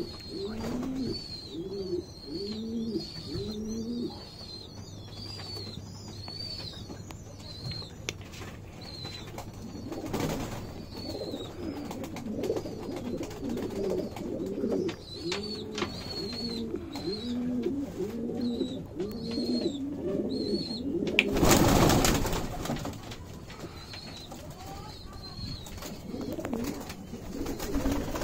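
Domestic pigeons cooing: repeated rolling coos in bouts, with a long unbroken run through the middle. A higher, repeated chirping call sounds over the first few seconds and again later. About three-quarters of the way through, a loud rush of noise about a second long is the loudest sound.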